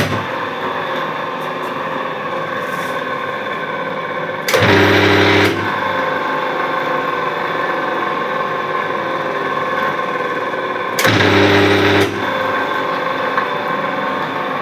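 An electric motor running steadily with a whirring hum. Twice, for about a second each, it grows louder with a strong low mains-frequency buzz.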